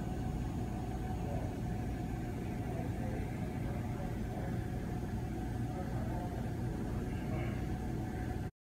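Steady low mechanical hum with a faint steady tone over it, cutting off suddenly near the end.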